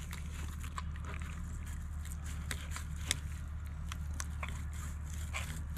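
A filleting knife cutting along a flathead's backbone: short crisp crunches and scrapes of the blade through flesh and small bones, scattered irregularly, over a steady low hum.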